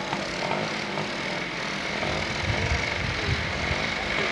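Engines of small off-road quad bikes running as they ride across grass, with a low rumble that grows stronger about halfway through.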